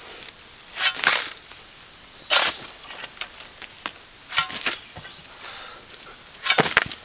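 A shovel digging into rocky, gravelly soil: four short scraping strokes, roughly two seconds apart.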